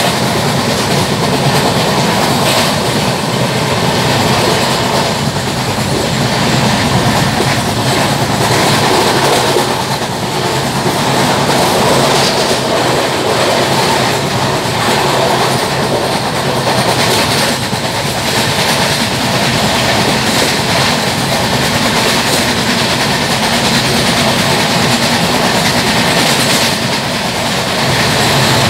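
LHB passenger coach running at speed, its wheels clattering and rumbling over the track, heard through an open coach door with the rush of passing air. Mixed in is the repeated knock of a flat wheel, a wheel with a flat spot worn into its tread.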